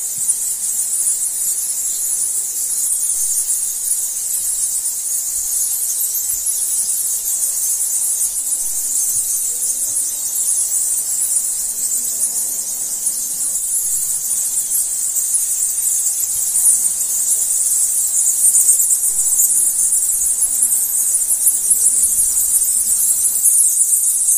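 Steady, high-pitched insect chorus: a dense shrill drone that grows a little louder toward the end.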